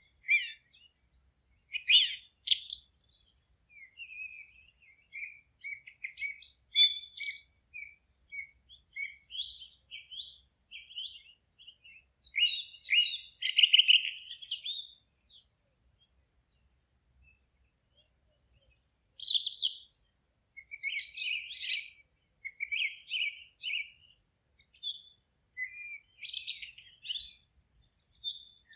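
Songbirds singing: a steady run of chirps and short warbled phrases, one after another with brief pauses between them.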